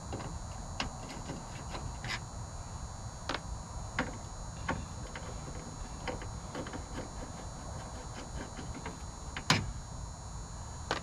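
Scattered small clicks and knocks of a truck's door speaker being worked loose from the door panel by hand, with one sharper knock near the end.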